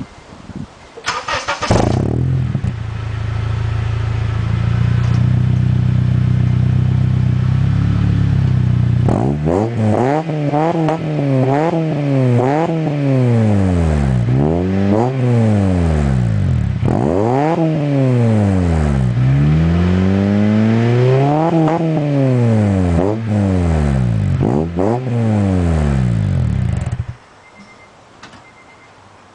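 Honda Element's 2.4-litre four-cylinder engine, breathing through a 2.5-inch Megan Racing N1 cat-back exhaust, is started: the starter cranks briefly and the engine catches and idles steadily. It is then revved repeatedly in a series of blips that rise and fall in pitch, and is switched off near the end.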